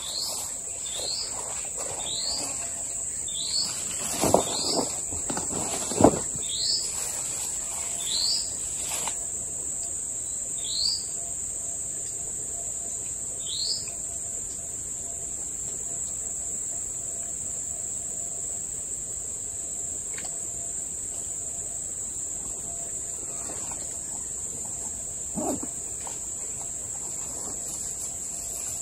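A steady, high-pitched insect drone of cicadas or crickets runs throughout. Over it, a bird repeats a short rising chirp about once a second; the chirps thin out and stop about halfway through. There are a few brief knocks, the loudest about six seconds in.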